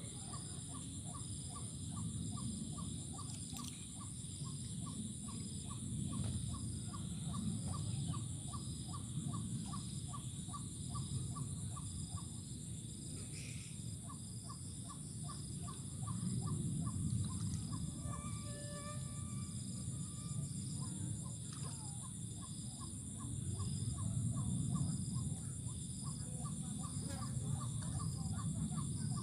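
Rural outdoor ambience: a steady high insect drone with a rapid chirping pulse several times a second, which stops for a while midway, over a low rumble, and a short bird call about eighteen seconds in.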